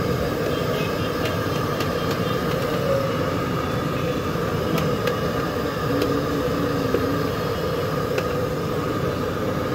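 Steady street-side din of passing traffic, with a few sharp clicks of a metal ladle against a cooking pan.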